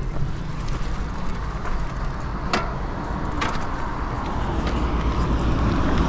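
Steady low rumble of wind on the microphone, with a few sharp clicks about two and a half and three and a half seconds in.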